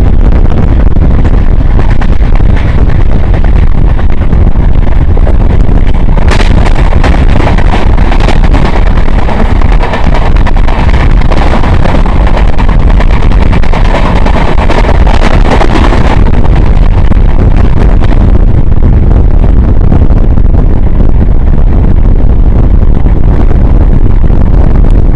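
Wind buffeting the microphone over the loud, steady rumble of a moving passenger train, recorded from an open coach doorway. From about six seconds in until about sixteen the noise turns brighter and harsher as the train runs close alongside a station platform wall.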